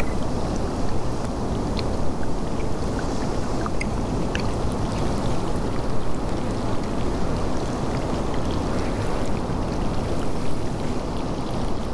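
Wind buffeting the camera microphone: a steady low rumble that swells and eases in gusts, with a few faint ticks over it.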